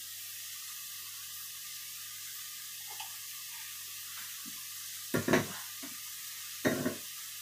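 Steady sizzle of minced chicken chilli paste frying in a pan on a gas stove, with brief voice sounds about five seconds in and again near the end.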